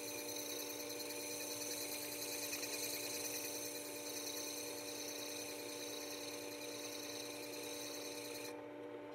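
Work Sharp sharpener's motor humming steadily while a steel plane iron, clamped in a roller honing jig, is ground on the spinning abrasive disc with a steady high hiss. The hiss stops near the end while the motor keeps humming.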